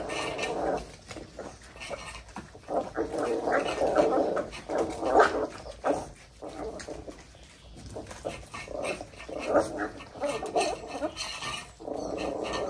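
Corgi puppies whining and barking in bouts of a second or so, over and over, with short quieter gaps between.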